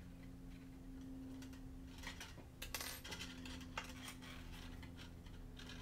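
A few faint metallic clicks of long-nose pliers gripping and snipping thick craft wire, over a low steady hum.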